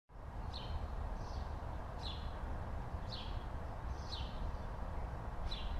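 A small bird chirping repeatedly, short falling chirps about once a second, over a steady low outdoor rumble.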